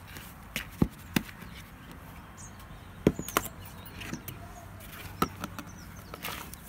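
A handful of short sharp knocks and taps, the loudest about a second in and again about three seconds in, as plant pots and potting mix are handled.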